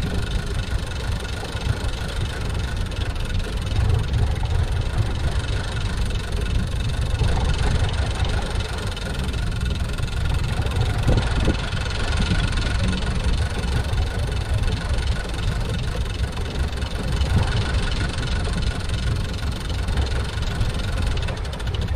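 Fishing boat's engine running steadily at trolling speed, a constant low hum with a faint steady whine above it.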